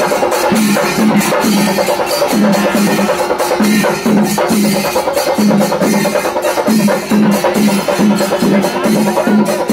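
Loud festival percussion: a drum ensemble beating a fast, steady rhythm of about two to three heavy beats a second, with sharp strokes layered over it.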